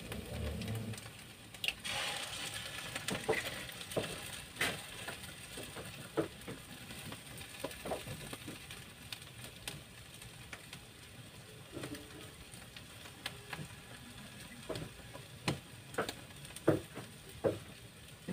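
Mashed sardines frying in a nonstick pan over a gas flame: a faint sizzle under a spoon scraping and tapping the pan at irregular intervals, with a few sharper clicks near the end.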